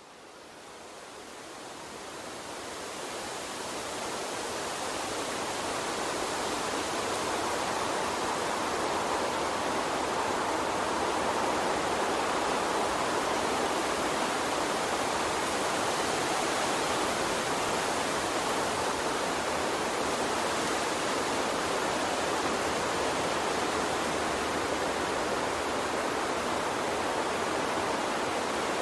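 Gentle water stream rushing steadily, an even hiss with no distinct splashes, fading in over the first few seconds.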